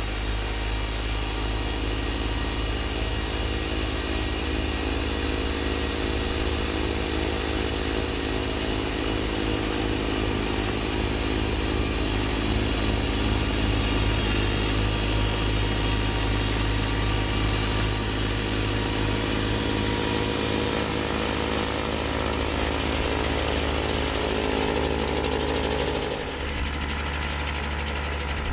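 Kubota B2601 compact tractor's three-cylinder diesel engine running steadily under load, with its mid-PTO Land Pride snowblower churning through deep snow and throwing it. The sound dips a little near the end.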